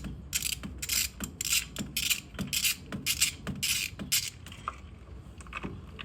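Socket ratchet clicking in a quick series of short back-strokes as a 5/8 spark plug socket turns out an old spark plug, dying away about four seconds in.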